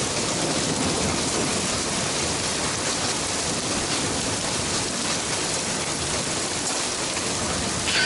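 Heavy rain pouring down: a steady, dense hiss of drops with no break.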